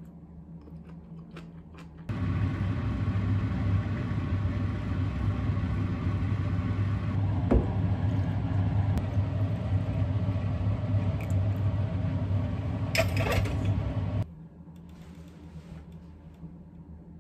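A loud, steady rumbling noise that starts suddenly about two seconds in and cuts off suddenly about twelve seconds later, with a short hissing sputter just before it stops.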